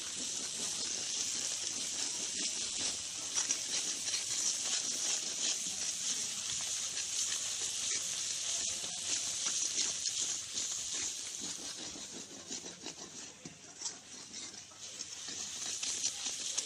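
Tomato-onion masala with freshly added ground spices frying in oil in a steel karahi: a steady sizzle with small crackles, and a steel ladle stirring through it against the pan. The sizzle eases a little about twelve seconds in, then picks up again.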